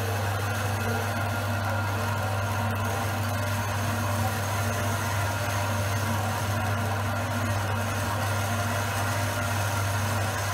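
Horizontal metal-cutting bandsaw running as its blade cuts through a thick round steel bar under flowing coolant: a constant low motor hum with an even hiss of the blade on top.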